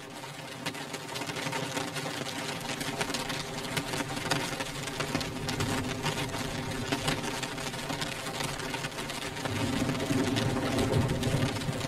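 Raindrops beating on a window pane: a dense, rapid pattering of fine ticks, over a steady low hum that grows louder near the end.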